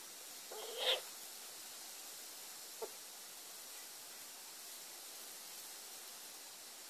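A kitten lets out one short squeaky mew about half a second in, during rough play-wrestling with another kitten. A brief faint squeak follows near three seconds in.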